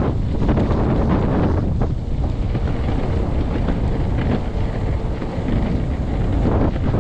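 Strong wind buffeting the camera microphone: a loud, steady low rumble that rises and falls with the gusts.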